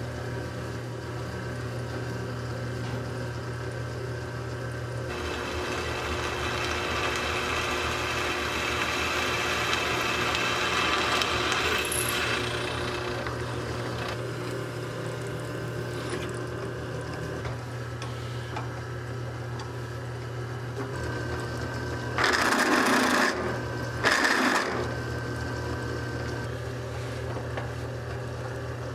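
Drill press motor running with a steady hum, its bit boring through the steel rim channel into the wooden felloe of a buggy wheel; the cutting is louder for several seconds in the first half. Two short, loud bursts of noise come near the end.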